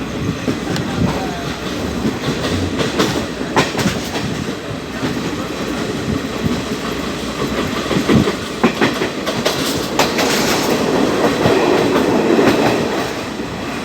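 Train running on the rails, the wheels clacking over rail joints with irregular sharp clicks over a steady rumble that swells slightly near the end.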